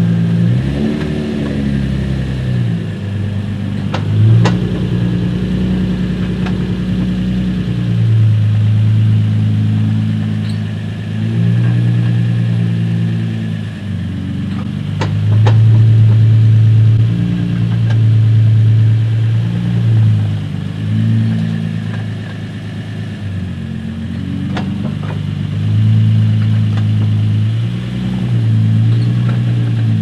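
Infiniti G35's V6 idling as the car creeps back and forth and stops on the brakes, with the engine note shifting under load. Several sharp metallic clicks come from the front suspension as the brakes bite: the sign of worn compression arm bushings.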